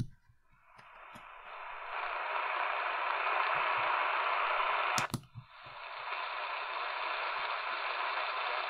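Static hiss from a Radio Shack 2000669 portable's speaker tuned between medium-wave (AM) stations, with no station coming through. The hiss swells up from near silence, and about five seconds in a click cuts it out briefly as the radio steps to the next frequency before the hiss builds back.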